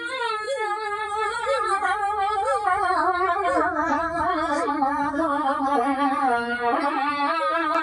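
One long, wavering vocal line, ornamented with quick warbles and slowly falling in pitch, held almost without a break.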